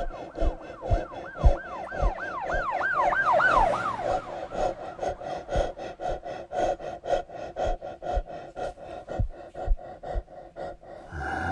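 A siren-like warbling tone, rising and falling about four times a second, starts about a second in and stops about three and a half seconds in. Under it runs a steady hum and a regular ticking pulse, about two to three ticks a second.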